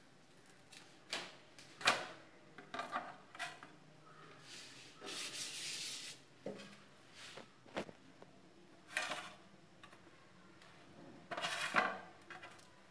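Kitchen handling sounds of metal cookware: scattered scrapes and light clinks as a thin crepe is lifted from a hot pan onto an aluminium plate, with a couple of longer rubbing sounds as the pan is wiped and the crepe is smoothed on the plate.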